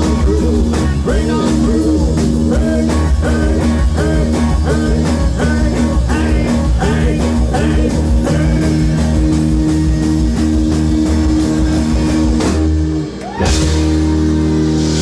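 Live rock-blues band playing, with guitar and a steady beat. The music drops out briefly about thirteen seconds in, then comes back.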